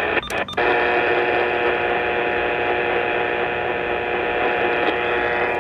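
Radio receiver audio after an emergency alert: a steady buzzing hum of many fixed tones over hiss, cut off above the radio's bandwidth, with a few brief dropouts in the first half second.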